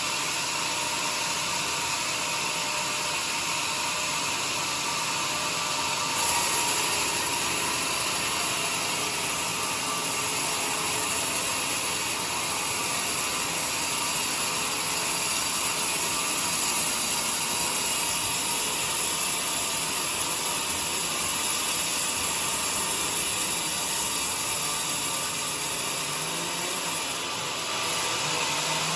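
Sawmill saw running steadily through a log of joar wood, a continuous high, hissing machine noise. It grows louder about six seconds in and dips briefly near the end.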